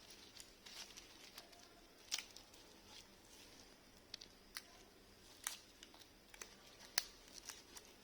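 Faint, irregular small clicks, taps and short rustles of a wristwatch and its packaging being handled, with sharper clicks about two seconds in and about seven seconds in.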